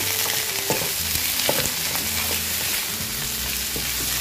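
Bell pepper strips and sliced onion sizzling in hot oil in a wok, stir-fried with a wooden spatula that scrapes and taps against the pan every second or so.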